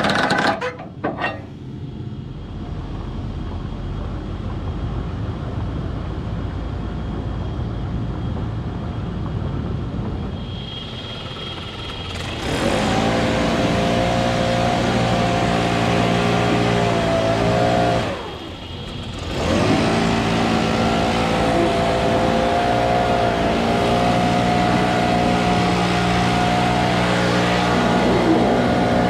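An engine, likely a yard machine moving lumber, runs at low speed and then revs up about twelve seconds in to run hard and steady. It drops off briefly around eighteen seconds, then revs up again and keeps running.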